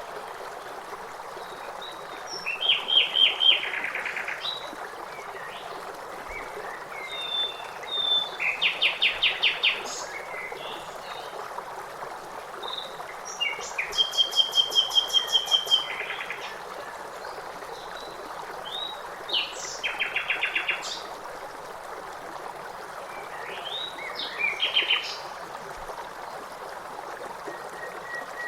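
Songbirds singing short, rapid trilled phrases about every five seconds, over the steady rush of running stream water.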